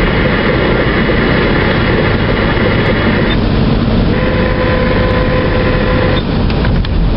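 Steady road and engine noise inside a moving car's cabin, with a steady tone sounding for about two seconds in the middle.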